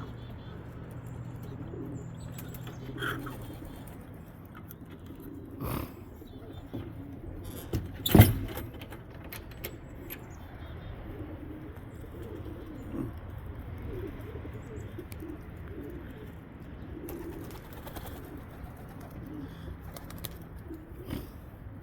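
Pigeons cooing softly again and again, with a few sharp claps or knocks; the loudest comes about eight seconds in.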